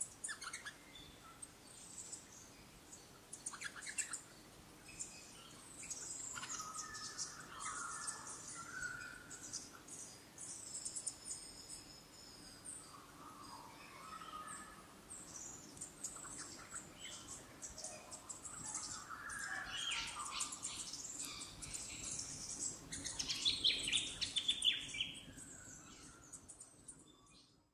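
Bushland bird chorus: several birds calling at once, with high-pitched twittering over lower whistled phrases, busiest near the end before fading out.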